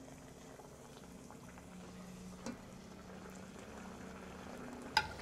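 Tortilla frying in hot oil in an enamel pot, the oil bubbling steadily and faintly as the tortilla crisps into a shell. Two light clicks come through, the louder one near the end.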